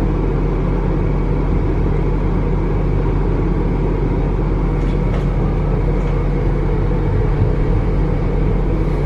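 Steady rumble of a moving passenger train heard from inside the carriage, with a couple of faint clicks about five seconds in.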